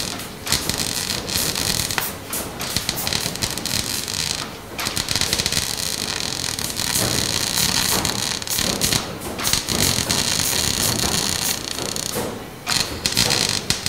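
Electric arc welding on a small bracket: a loud, continuous crackling sizzle from the arc, broken by a few short pauses where the arc stops and restarts, about five seconds in and again near the end.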